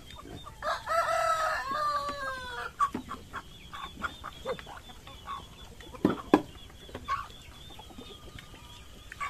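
A rooster crows once, a call of about two seconds that falls in pitch at its end. Hens cluck here and there, with a few sharp knocks, the loudest about six seconds in.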